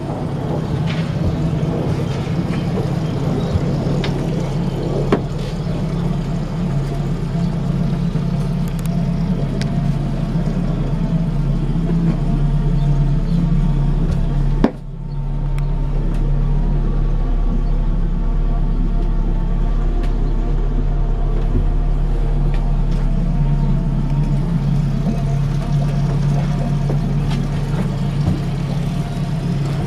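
Yamaha 60 hp four-stroke outboard motor idling steadily and evenly, running smoothly.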